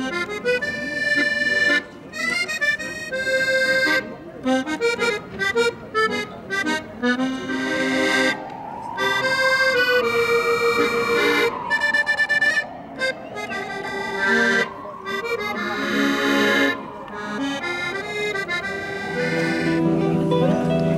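Accordion playing a lively tune in short, clipped notes with brief pauses between phrases. Through the middle a sliding tone rises and falls in slow arcs, and near the end lower held notes come in under it.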